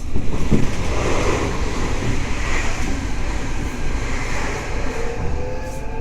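Running noise inside a Tokyo Metro 03 series subway car: wheels rumbling on the rail, louder from the start. Near the end a whine from the traction motors begins, rising in pitch as the train picks up speed.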